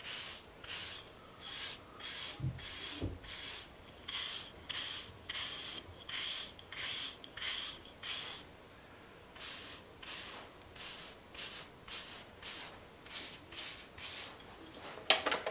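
A hair brush's bristles stroking through short, waved hair, a steady run of quick strokes of about two a second with a brief pause a little past halfway.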